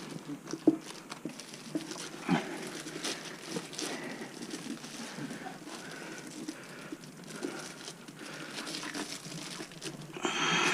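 Hand-handling noises while a rubber tire is worked onto an electric-skateboard hub motor: rubbing and rustling with scattered small knocks, the sharpest about a second in, and a brief rustle near the end.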